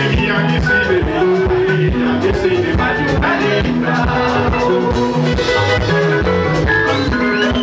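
Live Zimbabwean rumba band playing: electric lead and rhythm guitars, bass guitar and a drum kit keeping a steady beat, with a man singing into a microphone.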